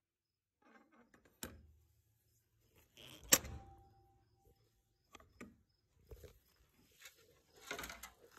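A few irregular knocks and thuds, the loudest a little over three seconds in and a small cluster near the end, with very quiet stretches between.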